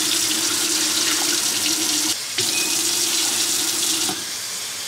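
Kitchen tap running into a rice cooker's inner pot and sink while rice is rinsed of its starch, a steady rush of water with a low steady tone in it. It breaks briefly about two seconds in and turns quieter near the end.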